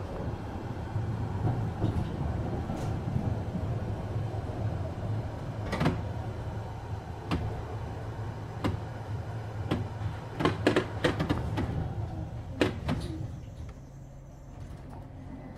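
Düwag GT6Z tram running with a steady low rumble, with sharp clacks about every second and a half, a quick cluster of them about two-thirds through, before the rumble drops away near the end.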